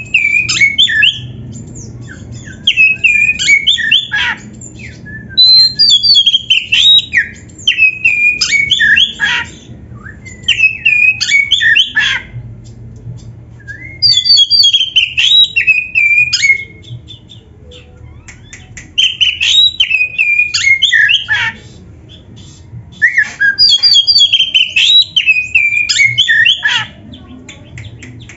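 Oriental magpie-robin (kacer) singing loud, varied phrases of whistles and harsh notes, each lasting a second or two, with short pauses between them.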